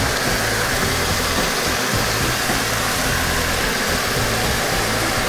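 Chicken thighs sizzling steadily in their own rendered fat in a frying pan as they are stirred with a wooden spatula.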